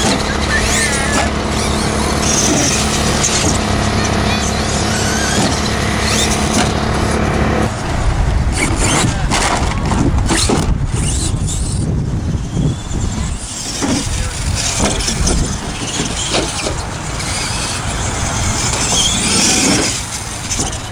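Radio-controlled monster trucks running and revving their motors as they drive and jump off a wooden ramp, with a whining motor note and scattered knocks from landings and tumbles.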